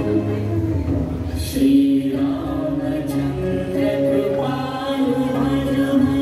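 Music for a Bharatanatyam dance: a song with long held, chant-like sung notes over a steady drone.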